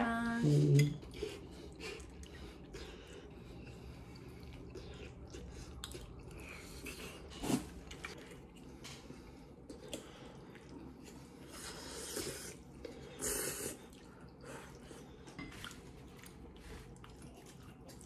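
Metal fork and spoon clinking and scraping in a bowl of spaghetti in tomato sauce, with soft wet sounds as the pasta is twirled and eaten. The sharpest clink comes about seven and a half seconds in.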